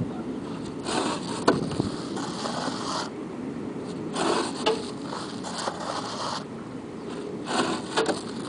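Earth adobe bricks scraping as they are dragged off a flatbed truck's stacked load and knocked against each other. The scraping comes in several bursts, with sharp knocks among them.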